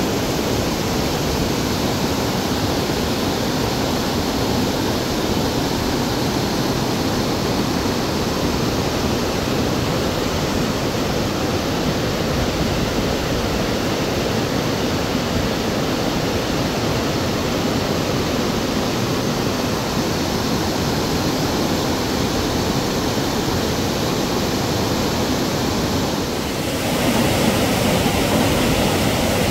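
Muddy flash-flood water rushing down a rocky gully: a steady, loud rush of torrent noise. About 27 seconds in it dips briefly, then comes back louder.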